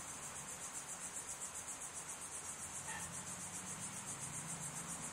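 Faint, steady, high-pitched chirping of an insect, pulsing evenly several times a second.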